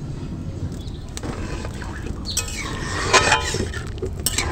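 Pasta boiling in water in a steel wok, a steady low rumble, with birds chirping and squawking in the background from about two seconds in. Near the end a metal ladle knocks against the wok as the pasta is stirred.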